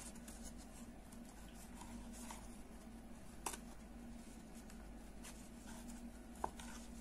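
Faint scratching and rustling of a crochet hook pulling yarn through the holes in the edge of a wooden bag panel, over a steady low hum. Two short sharp clicks stand out, about three seconds apart.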